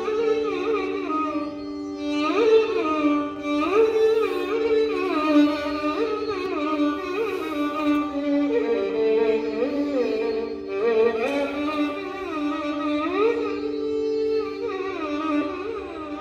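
Carnatic music played on a melody instrument: a line of notes with many slides and ornamental bends over a steady drone.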